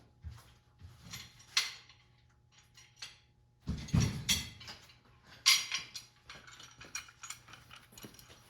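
Steel welding clamps clicking and clanking as they are handled and hung on steel rod, with a few louder knocks of metal on metal.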